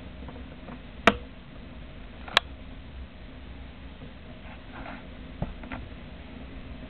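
Two sharp clicks about a second and a half apart, then a few fainter ones, over a low steady hum: the nitinol spring knocking against the glass beaker of hot water as it springs back into shape.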